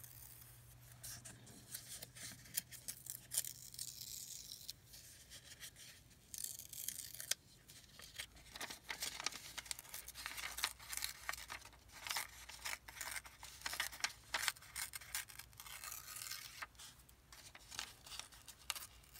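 Old lined paper being torn and handled by hand: a run of short, irregular rips and crinkles.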